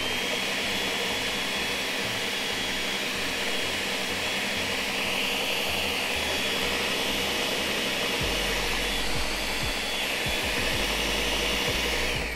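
Countertop blender running steadily at high speed, whipping feta with olive oil, then cutting off just before the end.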